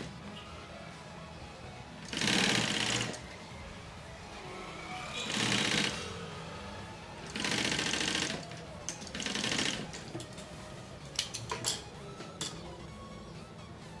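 Industrial sewing machine stitching in four short runs, each about half a second to a second long, with pauses between them as the fabric is repositioned. A few light clicks come near the end.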